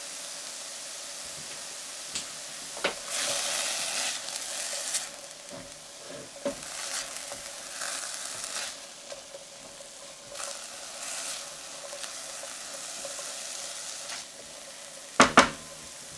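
Edamame and chestnut mushrooms sizzling in a stainless steel sauté pan with oil and light soy sauce, stirred with a spatula in several scraping passes. Two sharp knocks come near the end.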